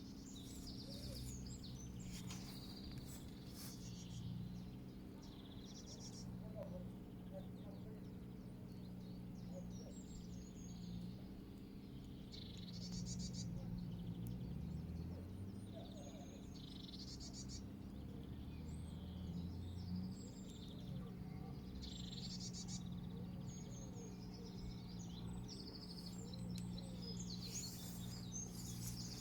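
Several small birds chirping and singing in short, scattered phrases over a steady low background rumble.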